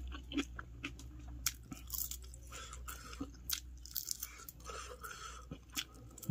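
Close-miked eating sounds: chewing and biting, with many short wet mouth clicks and soft crunches at an irregular pace, over a steady low hum.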